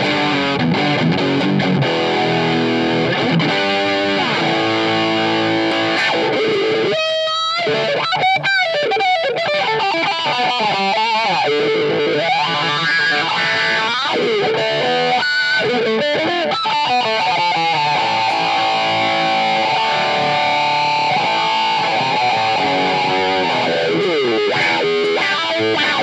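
Distorted electric guitar played lead from a budget Les Paul-style copy ('Chibson'): a steady run of picked notes, with notes bent up and down in pitch about a third of the way in and again around the middle.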